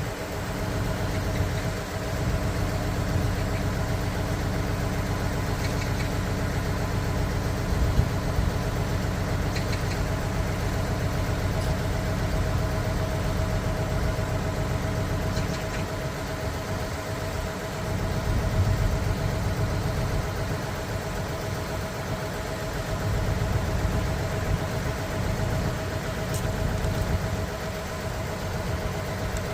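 Diesel engine of a Junjin 45-metre concrete pump truck running steadily, a low rumble with a steady whine above it; the level swells a little twice in the second half.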